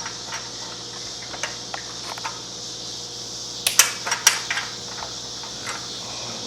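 Light metallic clinks and taps of an exhaust header pipe and its flange being worked onto the cylinder head studs, with a cluster of sharper clinks a little past the middle. A steady hiss runs underneath.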